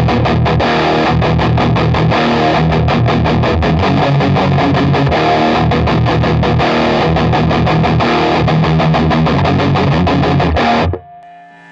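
Distorted electric guitar through a Digitech RP1000 multi-effects pedalboard's factory preset for drop C tuning, playing a fast, evenly picked heavy riff. It stops abruptly near the end.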